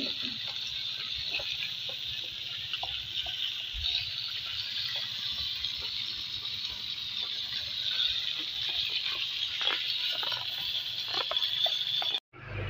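Banana-leaf-wrapped milkfish sizzling in hot liquid in a wok: a steady hiss with many small pops and crackles, which stops abruptly shortly before the end.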